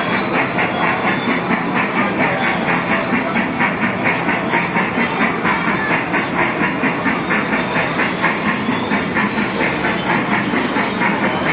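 Small Thomas the Tank Engine ride-on amusement train running, with a steady rhythmic clatter of about four beats a second.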